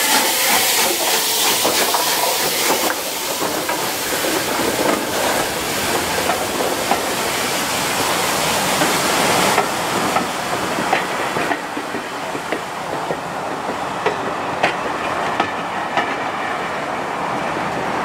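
A train running on the rails: a loud, even hiss that drops away about ten seconds in, then a string of sharp clicks of wheels over rail joints.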